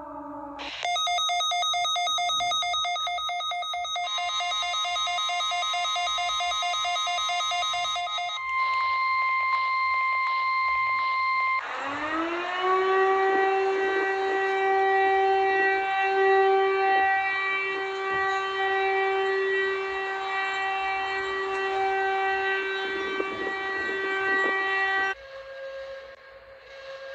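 Emergency-alert alarm tones played one after another. First comes a rapidly pulsing electronic alert tone, which changes pitch partway through and then becomes a steady two-note beep. Next a siren winds up in pitch and holds a steady wail. About two seconds before the end it cuts to a quieter, lower steady tone.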